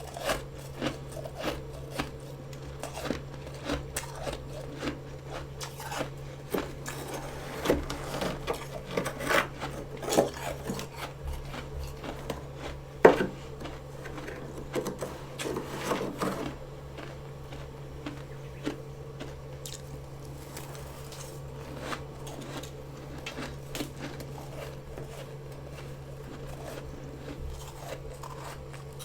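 Close-miked crunching and chewing of fresh freezer frost, a run of small crisp crunches with one sharp loud crunch about halfway through, thinning out later. A steady low hum runs underneath.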